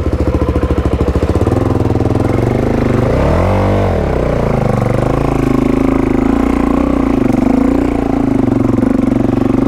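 Suzuki DR-Z400 dirt bike's single-cylinder four-stroke engine running at low revs, with one quick blip of the throttle about three and a half seconds in, the pitch rising and falling back, then running steadily.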